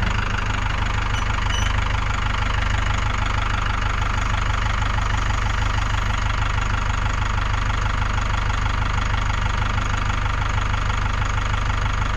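An engine running steadily at an even speed, with a fast, regular pulse to it, cutting off abruptly at the end.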